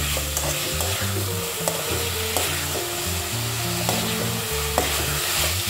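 Chicken pieces sizzling in a cornflour-thickened lemon sauce in an aluminium wok on high heat, stirred with a metal slotted ladle that scrapes and clicks against the pan now and then. A low background tune plays underneath.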